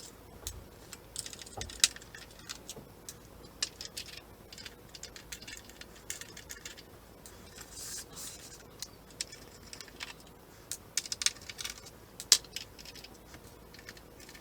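Irregular light clicks, ticks and rattles of a small Phillips screwdriver and screws being worked out of a 3D printer's plastic shell, with a few brief scrapes.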